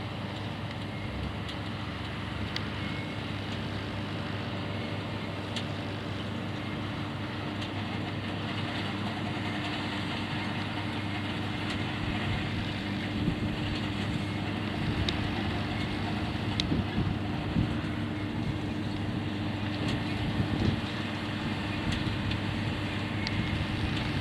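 Diesel potato-harvesting machinery running steadily, a constant engine hum over a noisy mechanical bed. Scattered knocks and rattles grow more frequent in the second half.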